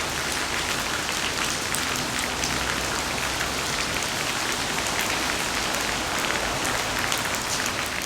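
Steady rain falling, a dense even hiss with many individual drops ticking through it.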